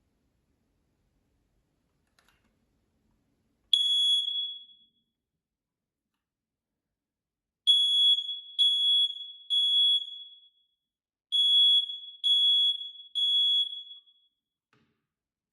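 Kidde i9040 smoke alarm sounding on test: one loud, high-pitched beep, then, after a pause, two rounds of three beeps with a short gap between, the three-beep alarm pattern. The alarm sounds on a freshly fitted battery, showing that it works.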